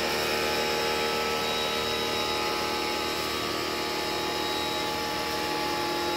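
Pressure washer running steadily with a constant whine, sending a smooth stream of water across a car's wet rear window to sheet off the water beads.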